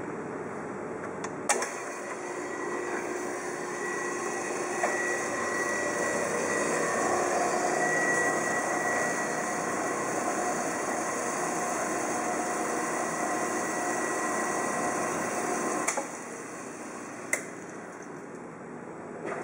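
Wells 8M horizontal band saw running with a steady mechanical hum and whine. A click about a second and a half in is followed by the running sound growing louder, and another click near the end is followed by it dropping away.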